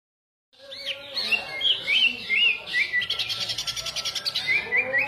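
Greater green leafbird (cucak ijo) singing: a string of quick, arched whistled notes with a fast trill in the middle, starting about half a second in.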